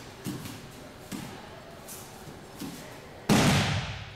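Bare feet stepping on a matted dojo floor with light thuds, then about three seconds in a loud thud as a body hits the mat in an aikido breakfall, dying away over most of a second.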